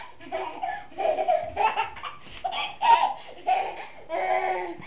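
Toddler laughing in a string of short bursts, about two a second.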